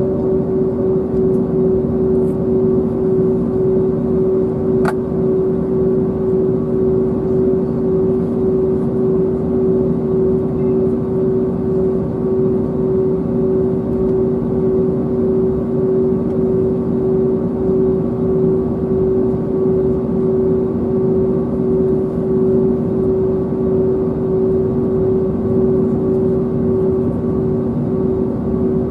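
Cabin noise of an Airbus A321neo taxiing, its Pratt & Whitney PW1100G geared turbofan engines at taxi power giving a steady hum with one strong, constant tone over an even rush. A single sharp click comes about five seconds in.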